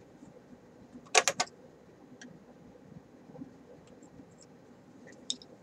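Brief clatter of small hard objects being handled: three or four sharp clicks in quick succession about a second in, then a few faint ticks later.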